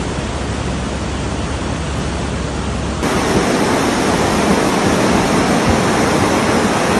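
A flood torrent of muddy water rushing, a steady loud roar of water with no break. About three seconds in it becomes louder.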